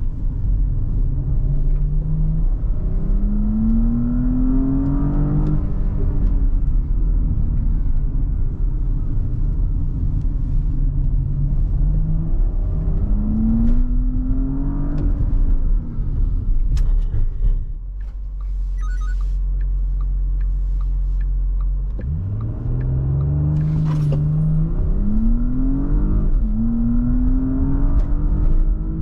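Porsche Cayenne Coupe's 3.0-litre turbocharged V6 pulling through the gears, its pitch rising and dropping back at each upshift. Near the middle it settles to a steady low hum, then pulls away again with more rising upshifts.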